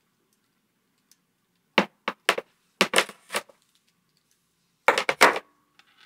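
Speaker cable and its connector plugs clicking and knocking against each other and the tabletop as the bundle is handled and set down, in three short bursts of clicks about two, three and five seconds in.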